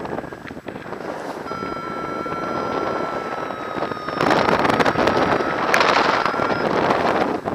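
Airflow rushing over the microphone of a harness-mounted camera in paraglider flight, growing louder about four seconds in. A steady thin whistle, sinking slightly in pitch, sounds through the middle and stops near the end.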